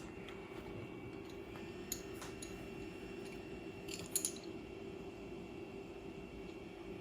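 Aiwa HS-PX303 cassette walkman playing a speed-test cassette: faint steady running with a thin steady high tone, and a few light clicks about two and four seconds in. The tape is playing too slow.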